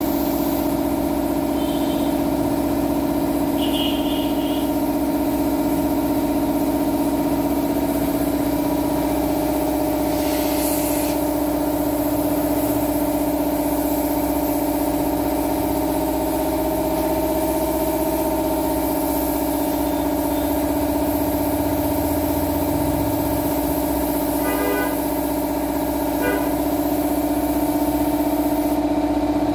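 Air compressor running with a steady hum, under the hiss of a compressed-air spray gun spraying lacquer, with a brief louder burst of spray about ten seconds in.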